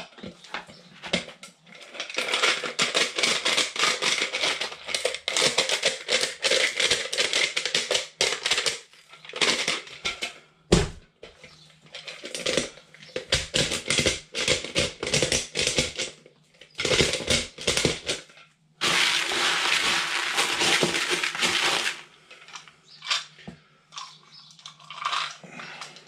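Dry fishing pellets crunching and rattling in a plastic bucket as they are crushed and mixed by hand, in stretches with short pauses and a steadier rush of rattling about three-quarters through.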